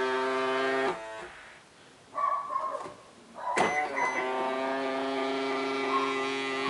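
Subaru Legacy BR/BM power-folding side mirror motor whining steadily as the mirror swings, stopping about a second in. A short harsher buzz follows, then a sharp click about three and a half seconds in as the motor starts again and runs with the same steady whine.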